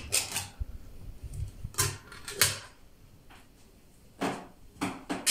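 Fish tins and tableware being handled: about half a dozen short, separate knocks and scrapes.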